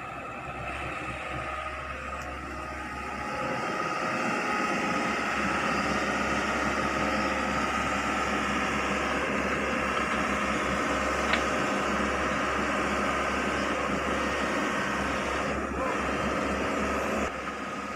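Hitachi Zaxis 110 excavator's diesel engine running. It rises in level about three seconds in and holds while the upper structure swings, then drops back near the end.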